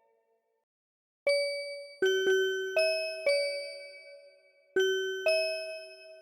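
MIDI recreation of a Japanese railway in-train announcement chime: a short melody of seven bell-like notes, each struck and fading, starting about a second in, with a pause before the last two notes.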